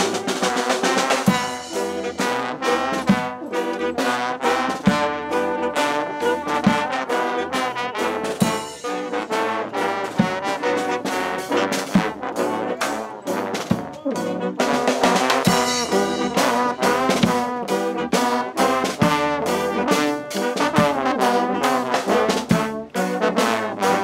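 Brass street band playing live: trombones, trumpets, saxophones and a sousaphone over drums keeping a steady beat.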